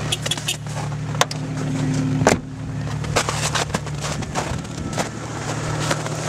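Jeep Cherokee engine running steadily, with scattered knocks and clicks; the loudest knock comes about two seconds in.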